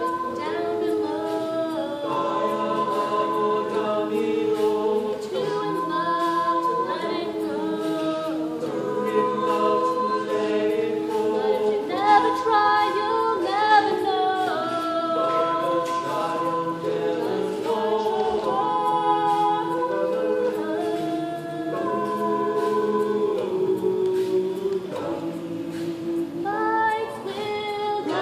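Small mixed a cappella group of men and women singing in harmony, with held chords that shift every second or two.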